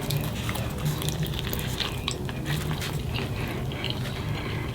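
Close-miked chewing of a California burrito: many small wet clicks and smacks of the mouth.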